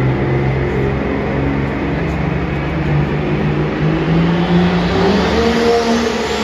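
Turbocharged pulling tractor engine running hard at the starting line, its revs building, with a thin turbo whine climbing steadily in pitch through the second half.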